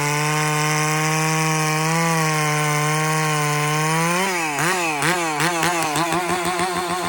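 Stihl 046 two-stroke chainsaw with a 28-inch full-skip bar running at full throttle under load in white oak, its pitch steady. About four seconds in, the engine note rises and then surges up and down several times a second, the saw revving in quick bursts off the cut.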